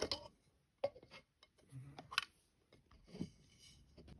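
Clear hard plastic case being handled by hand: scattered light clicks and brief rubbing.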